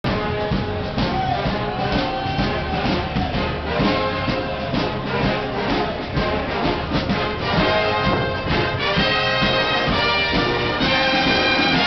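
Marching brass band jamming an upbeat tune: horns over a steady beat of about two hits a second, moving into long held horn notes about nine seconds in.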